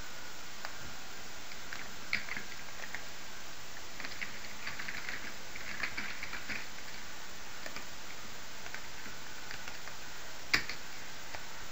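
Computer keyboard typing in short irregular bursts over a steady hiss, with one sharper, louder key click about ten and a half seconds in.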